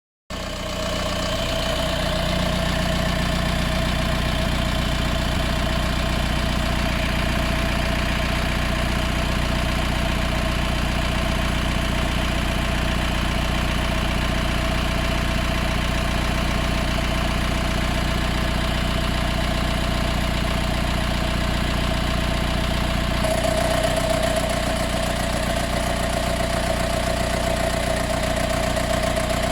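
Mercedes B180 CDI (W245) four-cylinder diesel engine idling steadily while warm; about 23 seconds in, a rattling sets in over the idle, like an additional engine or fan turning on. The owner does not know its cause.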